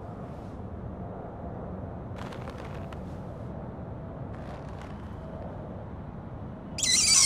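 Low, steady background rumble with a couple of faint, brief squeaks, then near the end a loud, high-pitched squeal starts.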